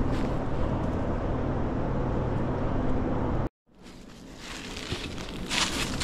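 A steady low outdoor rumble that cuts out abruptly just past halfway. The sound returns quieter, and near the end footsteps crunch on dry fallen leaves.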